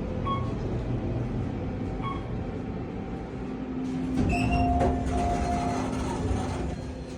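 Otis elevator car travelling between floors: a steady low rumble of the ride, with two short high beeps early on and a steady low hum setting in about halfway.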